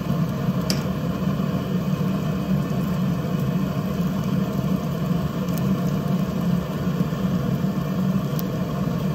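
Propane burner of a Blackstone pizza oven running steadily, an even low rush of gas flame with no change through the stretch.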